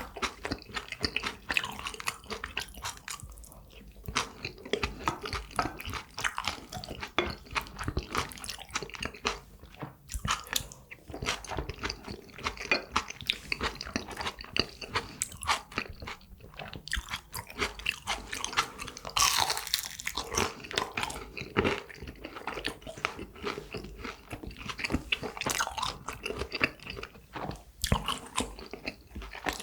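Close-miked eating of a jjajangmyeon and tangsuyuk meal: continuous chewing, with frequent crunchy bites. There is a louder, noisier stretch about two-thirds of the way through.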